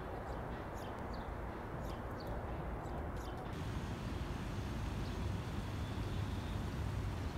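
Quiet city street ambience: a low steady hum of distant traffic with small birds chirping. About three and a half seconds in, the background changes to a steadier, hissier city hum with fewer chirps.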